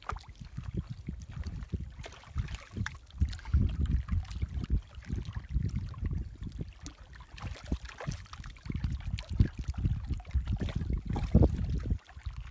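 Wind buffeting the microphone in uneven gusts, over water lapping against a rocky lakeshore.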